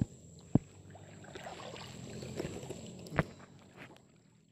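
Small hand-paddled boat moving on creek water, with a low sloshing and a few sharp knocks: the loudest right at the start, another about half a second in, and one about three seconds in. The sound fades out near the end.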